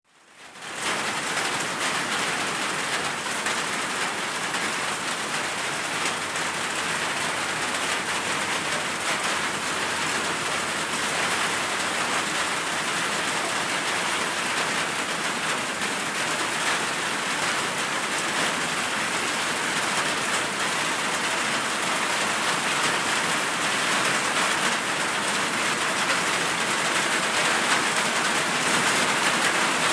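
Heavy rain falling steadily, an even hiss that fades in over the first second and grows slightly louder toward the end.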